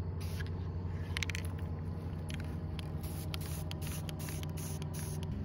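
Aerosol spray paint can hissing in a series of short bursts as matte green paint is sprayed onto a rifle. A steady low hum runs underneath.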